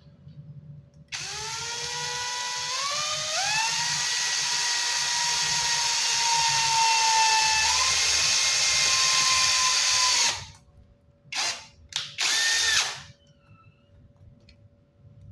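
Electric drill starting about a second in, its whine rising in pitch as it spins up and then holding steady for about nine seconds while it drills a hole in acrylic sheet, before stopping. Three short trigger bursts follow.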